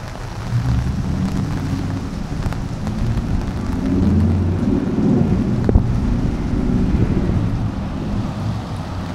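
Rain falling with a low, rumbling wind noise on the microphone that swells louder in the middle, and one sharp tap a little after halfway.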